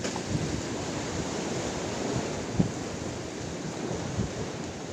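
Sea waves washing against the concrete tetrapods of a breakwater, a steady rushing wash, with wind buffeting the microphone. A single short knock about halfway through.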